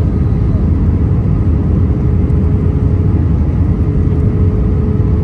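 Steady cabin noise of an Airbus A320-family airliner on approach, flaps extended: the jet engines and rushing air make a loud, even rumble, with a faint steady hum above it.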